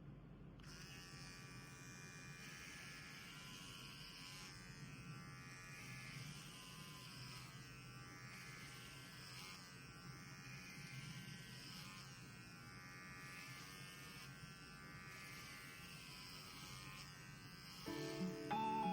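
Electric pet hair clipper switched on just under a second in and buzzing steadily while trimming a dog. Background music comes in near the end.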